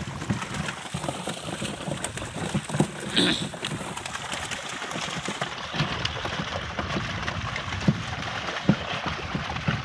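A packed school of torpedo scad thrashing at the surface inside a fish-corral net, a dense, continuous run of irregular splashes. A brief high squeak comes about three seconds in.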